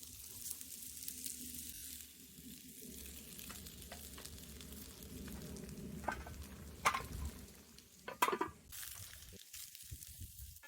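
Sweet potato sizzling in a frying pan over a campfire, with a steady hiss and a few sharp clicks and clatters, the loudest about seven and eight seconds in.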